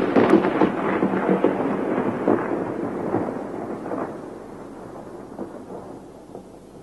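Thunder: a loud peal with crackles and rumbling that dies away gradually over several seconds.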